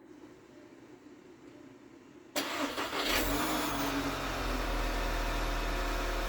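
Volkswagen Tiguan 2.0 TSI turbocharged four-cylinder petrol engine, its cylinder head freshly rebuilt after bent valves, starting suddenly a little over two seconds in and settling into a steady idle.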